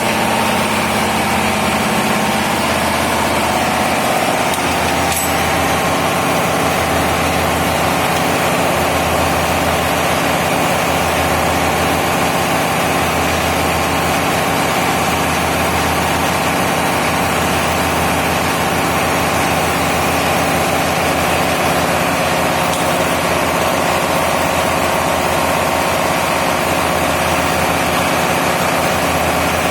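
Large diesel engine running steadily at a constant speed, with a slow throb in its low hum every couple of seconds.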